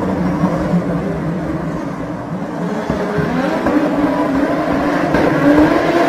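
Audi Quattro engine, out of sight, revving as it drives along the road: its pitch and loudness sag about two seconds in, then climb steadily as it accelerates and comes closer.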